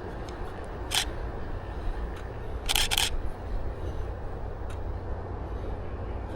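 DSLR shutter firing: one click about a second in, then two quick clicks near three seconds, over a steady low rumble.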